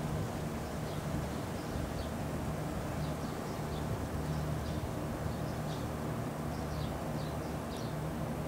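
Outdoor background: a steady low rumble with small birds giving short high chirps every second or so.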